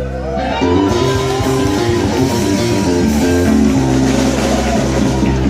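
Live rock band playing an instrumental passage without vocals: guitars and bass holding chords over drums.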